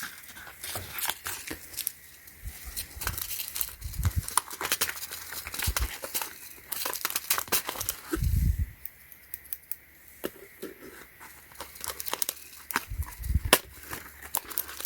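Crinkling and crackling of packaging as a hand-sewing kit and its small tools are handled, with scattered light clicks and a couple of dull thumps, one about four seconds in and one about eight seconds in.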